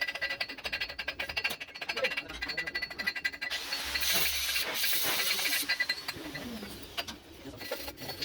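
Stick (shielded metal arc) welding with a 7018 electrode run vertically upward: the arc makes a fast, dense crackle for the first three seconds or so, then goes to a softer hiss.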